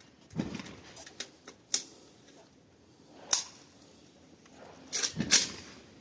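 A series of sharp clicks and knocks, like a shotgun being handled and loaded: a few light ticks, a sharp click a little past halfway, and two louder knocks near the end.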